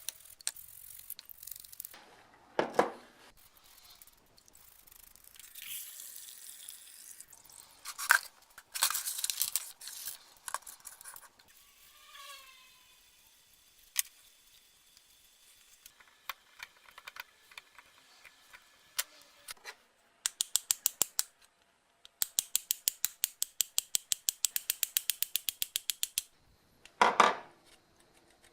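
Hand tools and small metal parts being handled while a BMW E30 throttle body is worked on: scattered knocks and clicks, a brief squeak, and two fast runs of even clicking, about eight or nine a second, in the second half.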